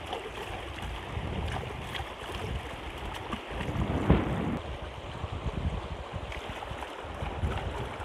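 Shallow river rushing steadily over rocks, with occasional splashes from hands rinsing a raw chicken in the water. Wind buffets the microphone.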